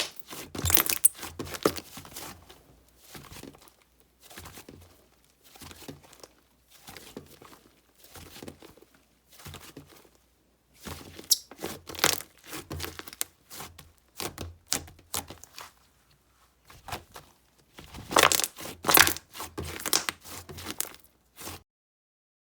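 Clay-mixed slime being squeezed and stretched by hand, giving irregular clusters of crackling and popping. It is loudest at the start, again around the middle, and once more near the end, and stops shortly before the end.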